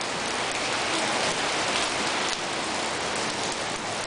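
Heavy rain falling steadily on a paved patio: a dense, even hiss of pouring rain with many small drop splashes in it.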